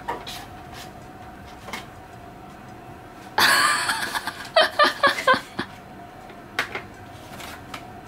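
A woman laughing: a breathy burst about three seconds in, then a few short laughs. Before and after it, quiet room tone with a few small clicks of items being handled in a plastic tray.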